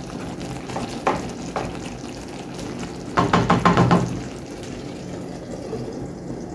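Coconut curry gravy with chicken simmering and sizzling in a pot. A stirring spoon knocks on the pot twice about a second in, then scrapes through it in a quick, louder run of strokes about three seconds in.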